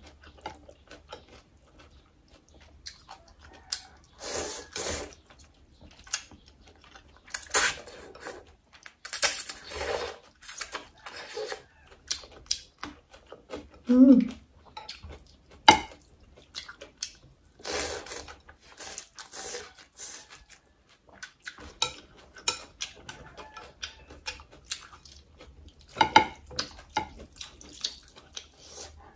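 Close-miked eating of noodle soup: metal chopsticks stirring and clinking in a glass bowl, broth splashing, and many short bursts of slurping and chewing. A brief hummed tone comes about halfway through.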